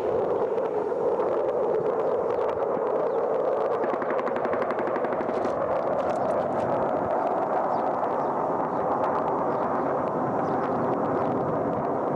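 Steady roar of a fighter jet flying overhead, overlaid from about four seconds in by rapid automatic gunfire in quick runs of shots.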